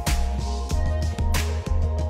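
Background music with a bass line and a steady drum beat.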